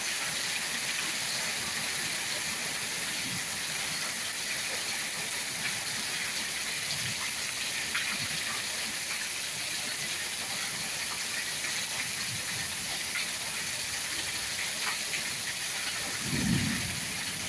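Steady rain falling, a dense even hiss with scattered ticks of single drops; a brief low thump near the end.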